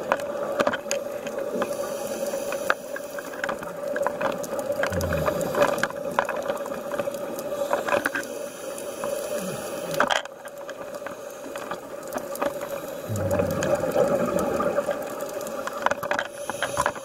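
Underwater scuba breathing: two long rushes of exhaled regulator bubbles with a low rumble, the first about four seconds in and the second about thirteen seconds in, over a steady hum and scattered clicks.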